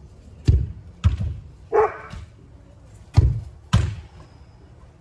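A soccer ball kicked hard twice, each kick a sharp thud followed about half a second later by another thud as the ball reaches the goal.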